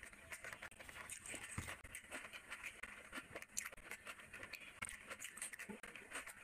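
Close-miked eating sounds: irregular wet chewing and mouth smacking, with the squelch of a bare hand squeezing and scooping curry-soaked rice.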